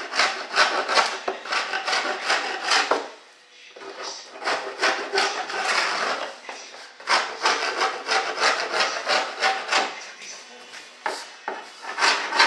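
Hand file rasping along the edge of a freshly moulded composite stabilizer in quick back-and-forth strokes, about three a second, with a short pause about three seconds in and another near the end.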